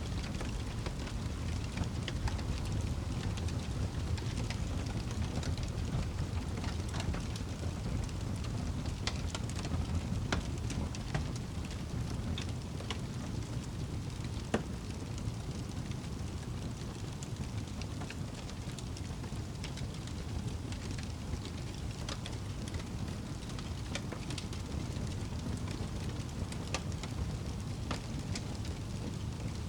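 Wood fire in a fireplace crackling: scattered sharp pops and snaps over a steady low rumble of the burning logs, with one louder pop about halfway through.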